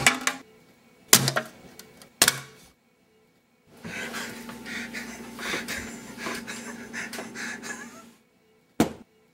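Three sharp knocks about a second apart, then several seconds of rustling and clattering, and one more knock near the end.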